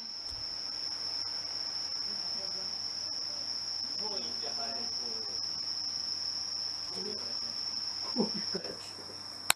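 A steady, high-pitched continuous tone, like an insect's unbroken trill, runs throughout and cuts off abruptly at the very end. Faint indistinct sounds come and go beneath it, with a short louder clatter about eight seconds in.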